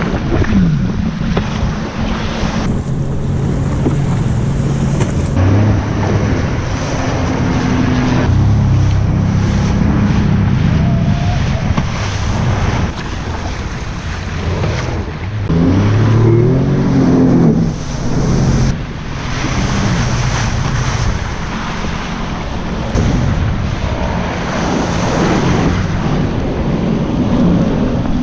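Jet ski engine running and revving up and down over choppy water, with wind buffeting the microphone and surf noise throughout.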